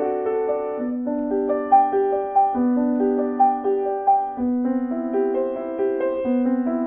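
Solo piano music: a slow melody over longer held lower notes, played on a Steinway model B grand piano after its partial rebuild and restoration.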